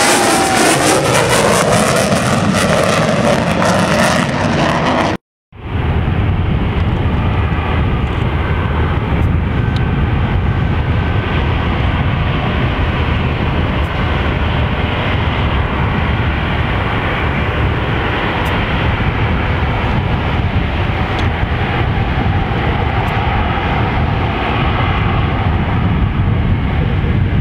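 Steady low rumble of an airport runway snow-blower truck running as it throws snow. It follows a louder hissing noise in the first few seconds that cuts off abruptly.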